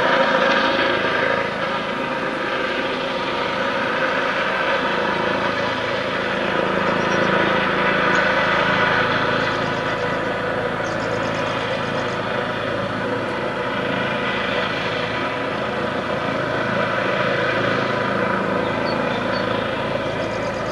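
Eurocopter EC135 police helicopter flying overhead: steady turbine and rotor noise with a whine of several held tones from the shrouded fan tail rotor. It is loudest at the start and eases a little after about two seconds.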